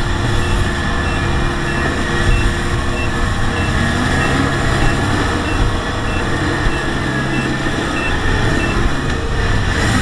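Kubota DC-70 Plus combine harvester's diesel engine running steadily under load as the machine tracks through deep mud. A short, high electronic beep repeats about every 0.6 s and stops near the end.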